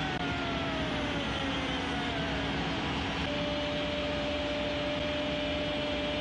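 Stadium crowd cheering a goal in a steady, dense roar, with long held horn-like tones over it, a second one coming in about three seconds in.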